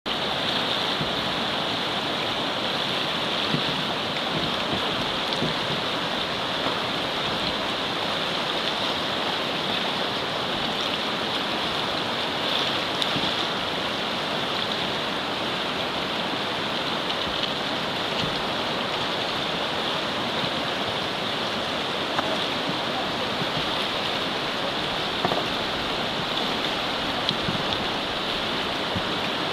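Whitewater rushing steadily through a river standing wave in rapids, an even unbroken wash of water noise.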